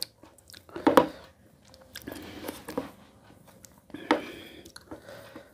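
Close-up eating sounds: chewing and mouth noises from someone eating rice and curry by hand, with two louder moments about a second in and about four seconds in.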